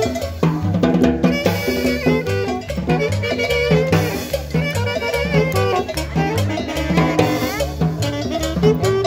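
Loud Latin dance music in a salsa style, with a steady, evenly repeating beat of drums and percussion over a bass line.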